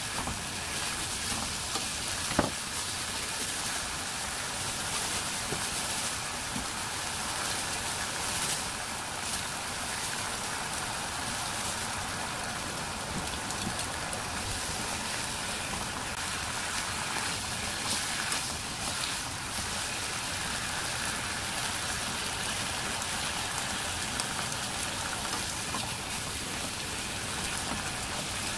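Beef, onion and bok choy sizzling in a hot frying pan while being stir-fried with chopsticks: a steady crackling hiss. A sharp tap about two seconds in.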